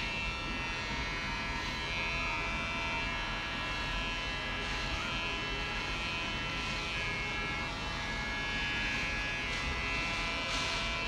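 Electric hair clippers running with a steady buzzing whine while cutting short hair.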